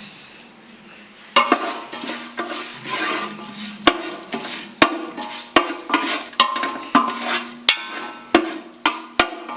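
Whole spices (cinnamon, cardamom, cloves) sizzling in hot ghee in a pot while a spoon stirs them, clinking and scraping against the pot. The stirring starts about a second and a half in, with repeated sharp clinks.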